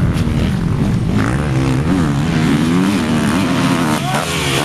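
Enduro motorcycle engine revving hard, its pitch rising and falling repeatedly as the rider works the throttle across the dirt course.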